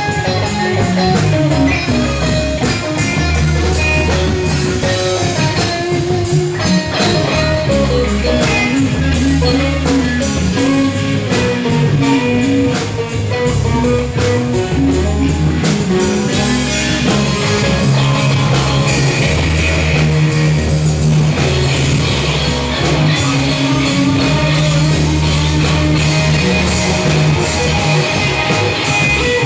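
Rock music with electric guitar, a bass line and drums.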